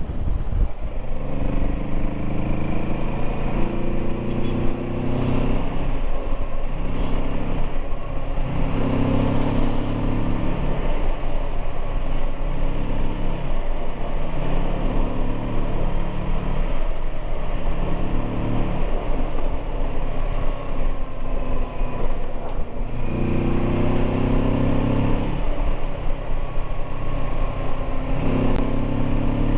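Kawasaki Versys 650's parallel-twin engine and exhaust under way, pulling up through the gears. The note climbs, breaks briefly at each gear change, and climbs again, many times over.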